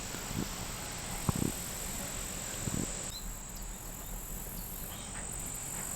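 Insects, crickets by their sound, trilling in one steady high note, with three soft low thumps, footfalls on the boardwalk.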